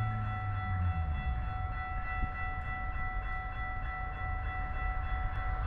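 Amtrak Siemens Charger diesel locomotive approaching at the head of a passenger train, a low rumble that grows louder near the end, with a steady high-pitched tone throughout.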